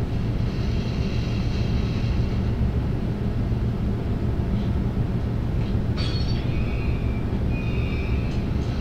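Film soundtrack playing through lecture-hall speakers: a steady low rumble with a hum, and thin high whining tones over it near the start and again from about six seconds in.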